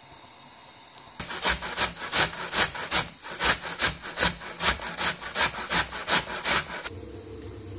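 Onion being grated on a metal box cheese grater: a steady rhythm of rasping strokes, about two and a half a second, starting about a second in and stopping near the end.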